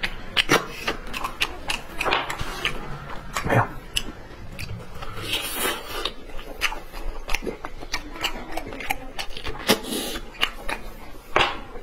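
Close-miked wet sucking and slurping as marrow is drawn out of short pieces of braised lamb shank bone, mixed with chewing and mouth clicks.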